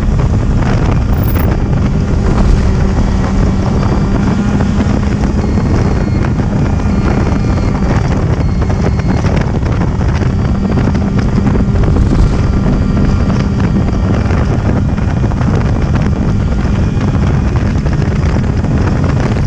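Snowmobile engine running steadily at speed, a continuous drone, with heavy wind buffeting the microphone.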